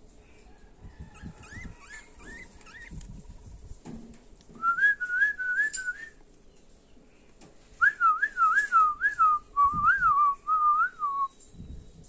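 Clear whistling in quick repeated up-slurred notes, three to four a second: faint notes first, then a loud run of about a second and a half, and after a short pause a longer run of about three and a half seconds that drops a little in pitch partway through.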